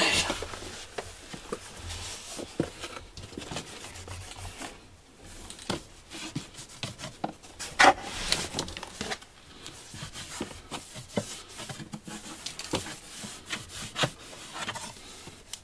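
Cat litter box being cleaned: clay litter granules scraping and rattling against the plastic tray, with rustling of a plastic sheet, in irregular strokes, and one sharper, louder knock about eight seconds in.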